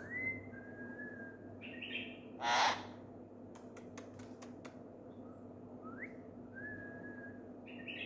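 Blue-fronted Amazon parrot whistling: a rising whistle that levels into a steady one, heard twice, and a short loud squawk about two and a half seconds in. A quick run of sharp high clicks comes around the middle.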